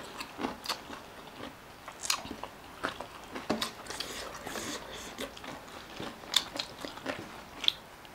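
A person chewing and biting food close to the microphone, with irregular crunches and sharp mouth clicks.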